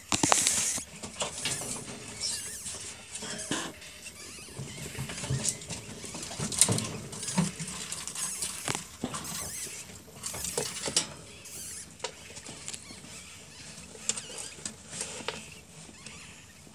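Newborn ferret kits, a few hours old, making tiny squeaks, mixed with rustling and crackling of nest straw.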